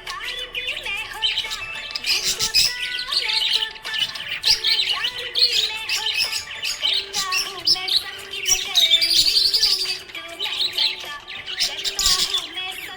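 Budgerigar chirping and warbling without a break, a fast jumble of short high chirps.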